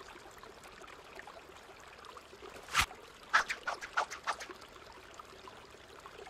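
Sound effects in a gap in the music: a single sharp click about three seconds in, then a quick run of six or so short, high blips over the next second and a half, over faint hiss.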